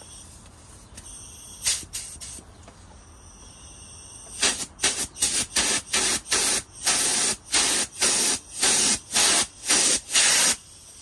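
High-pressure nitrogen from a tank regulator and hose, fired in short blasts to blow fine dust out of a Lochinvar Noble boiler's burner. A couple of blasts come about two seconds in, then a rapid string of about a dozen, roughly two a second, through the second half.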